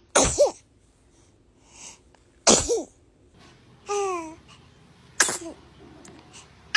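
Infant sneezing: three sharp sneezes about two and a half seconds apart, each ending in a tiny squeaky voice sound, with another starting at the very end. Between the second and third sneeze the baby makes a short high vocal sound that falls in pitch.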